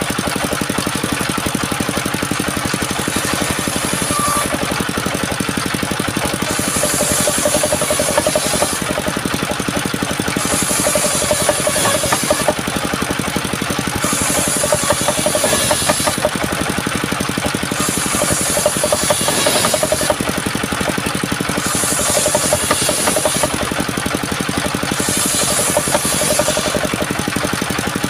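Engine-driven wood-sawing machine running steadily, with a high hiss that comes in for about two seconds roughly every three to four seconds, about seven times, as the saw passes through wood.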